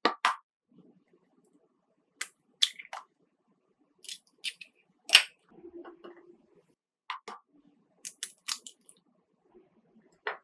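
Scattered light clicks and taps of kitchen utensils and containers being handled, about a dozen short knocks, some in quick pairs, with soft rustling between them.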